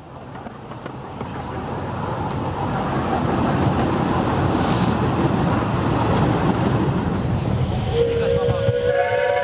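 A rushing noise swells over the first few seconds. About eight seconds in, a small-gauge steam locomotive's whistle starts, several tones sounding together as one held chord.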